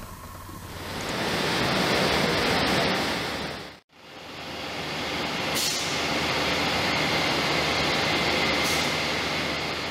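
Steady machinery noise of a biowaste treatment hall, with conveyors and process equipment running and a faint high whine over it. It fades in, cuts out abruptly a little under four seconds in, then fades back in.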